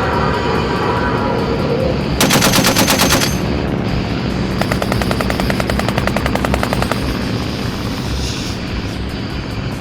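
Rapid machine-gun fire effect in two bursts over a steady low rumble: a loud burst about two seconds in and a longer one from about four and a half to seven seconds.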